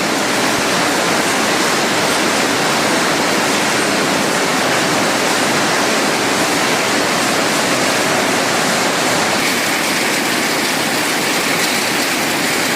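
Automatic cashew nut cutting and shelling machine running, a loud, steady, dense noise with no distinct strokes; a faint high tone comes in near the end.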